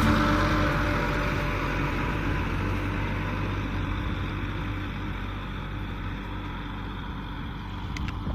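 Kubota M6040SU tractor's diesel engine running steadily as it ploughs dry ground, the sound slowly fading away.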